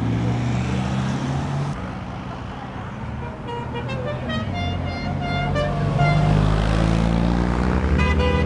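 Cars driving past one after another with their engines running, one revving up as it goes by about six seconds in. Car horns toot in short bursts from about three and a half to six seconds in and again near the end.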